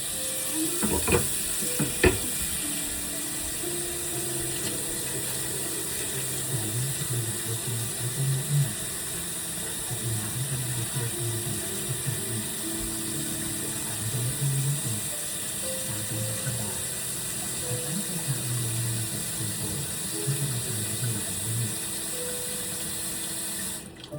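Water running steadily from a kitchen faucet, likely filling a pot for boiling noodles, then shut off suddenly near the end. A few clicks come in the first couple of seconds, and faint background music or TV voices play throughout.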